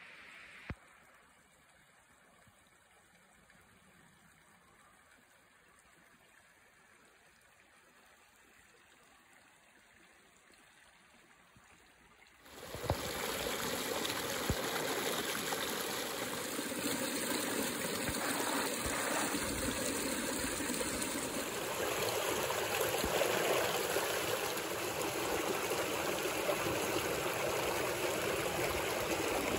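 Small rocky mountain creek running and splashing over stones. It is faint for the first twelve seconds or so, then comes in suddenly much louder and close.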